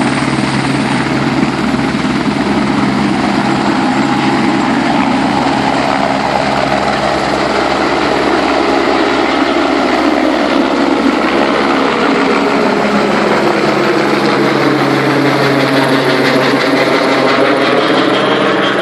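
Sheriff's helicopter flying close by, a loud, steady rotor and engine noise. In the last several seconds its tone starts to sweep and waver as it moves.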